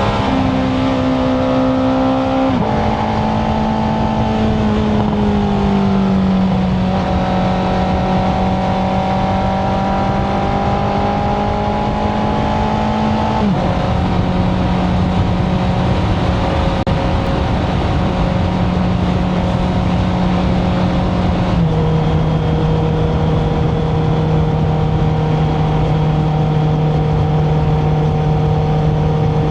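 Honda CBR650R's inline-four engine through an Akrapovic titanium exhaust, under way at a fairly steady pitch. The pitch drops in a sudden step three times, about 3, 13 and 22 seconds in, as it shifts up a gear.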